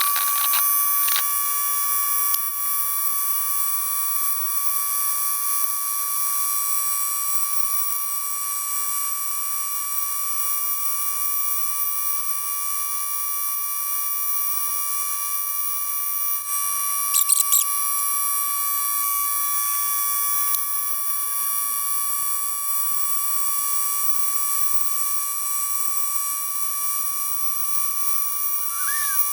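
Air-powered pencil-style micro die grinder (Neiko 10649A, 54,000 RPM) running with a steady high-pitched whine as a carbide burr carves wood, with a brief scratchy flurry a little over halfway through.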